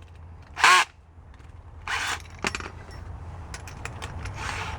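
Hand drill's chuck being opened and tightened to swap to a 5/16-inch bit: scattered ratcheting clicks and rattles, with a sharp click about halfway through and a run of small clicks near the end, over a low steady hum.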